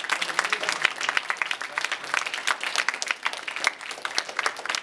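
Audience applauding: many hands clapping in a dense, steady stream of claps.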